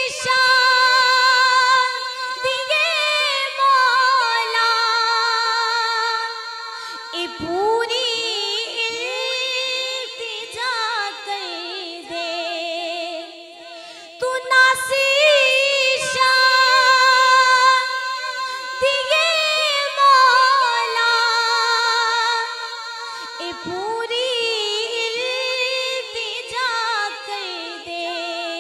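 A woman singing a Punjabi naat unaccompanied into a microphone, in long, ornamented phrases whose pitch slides up and down.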